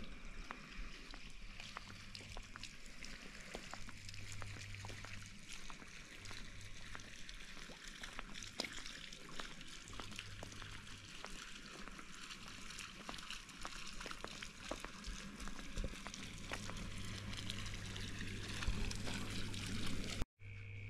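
Water trickling and splashing from a swimming pool's fountain, over a steady high chirring of night insects.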